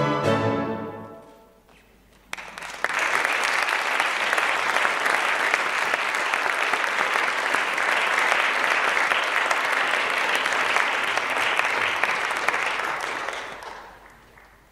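The last notes of the dancer's ballet music die away within the first couple of seconds, then after a short pause an audience applauds steadily for about eleven seconds, fading out near the end.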